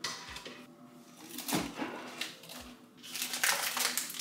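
Kitchen cabinet doors opening with a knock, then rummaging through packaged snacks on the shelf, with soft bumps. Plastic wrappers crinkle over the last second or so.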